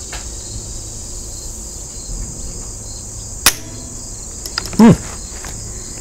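Crickets chirping steadily in the grass, broken by a sharp crack about three and a half seconds in and a louder bang about a second later.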